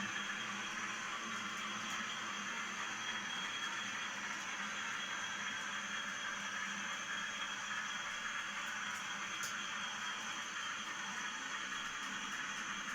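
Class 40 diesel-electric locomotive's English Electric 16SVT engine running steadily, a continuous hiss with a high steady whistle over it.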